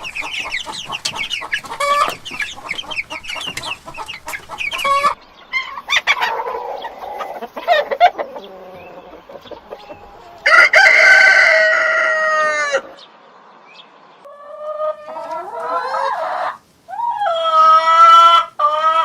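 Chickens clucking rapidly for about five seconds, cut off abruptly; then a rooster crowing loudly about ten seconds in, followed by two more long calls near the end.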